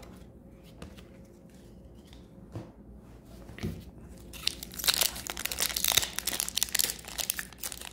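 Foil wrapper of a hockey card pack crinkling and tearing as it is handled and pulled open, starting about halfway through. Before that there are only a few faint taps of cards being set down on a table.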